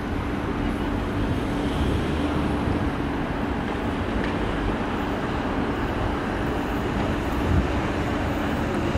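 Steady outdoor city ambience on an elevated light-rail platform: a continuous low rumble of traffic and rail noise with a faint steady hum.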